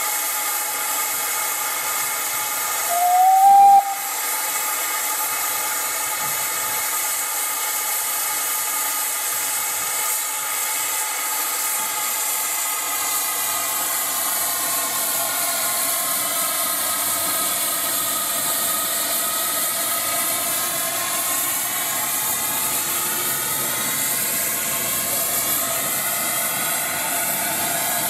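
Steam locomotive blowing off steam: a loud, steady hiss, with a short rising whistle note about three seconds in.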